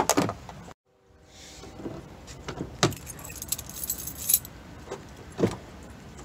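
Car keys on a ring with a remote fob jangling in the hand, with scattered clicks and a thud near the end as the Mazda 3's driver door is unlatched and opened.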